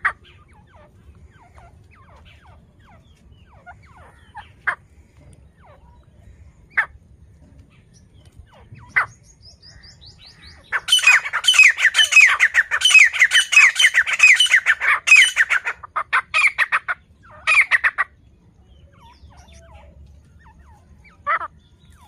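Caged grey francolin (teetar) calling: a few single sharp calls, then, about eleven seconds in, a loud run of rapidly repeated calls lasting about five seconds, and a few more calls near the end.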